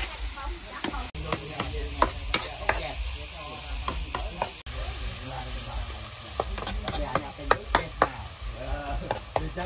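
A metal ladle scraping and knocking against a steel wok in irregular sharp clanks, over the sizzle of food frying in it.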